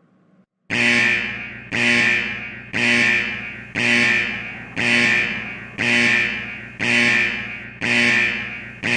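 Fire alarm going off, starting just under a second in: a loud ringing tone that strikes about once a second, each one fading before the next.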